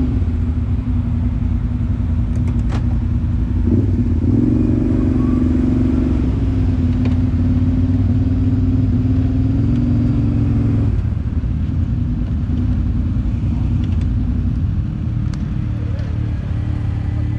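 Motorcycle on the move: a steady low engine and wind rumble, with a higher, steady engine tone coming in about four seconds in and dropping out about eleven seconds in.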